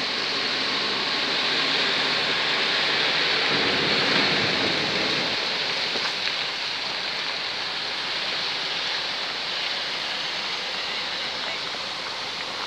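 The Kali Gandaki river rushing over rapids: a steady noise of fast-flowing water. A low rumble swells briefly about four seconds in.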